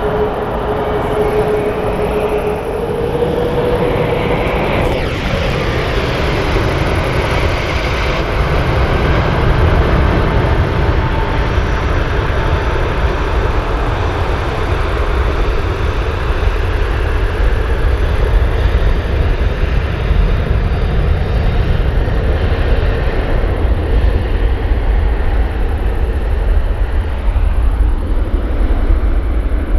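Jet airliner's engines at takeoff thrust: a steady roar with deep rumble, and a whine that falls sharply in pitch as the aircraft passes about five seconds in.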